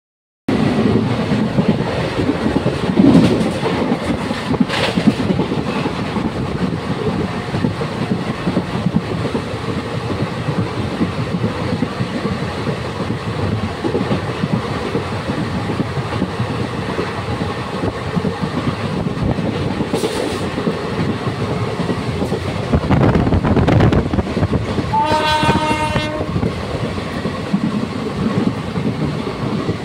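Moving train heard from an open coach doorway: steady rumbling and clattering of wheels on the rails, with a few clanks early on. Near the end a train horn sounds once for about a second and a half.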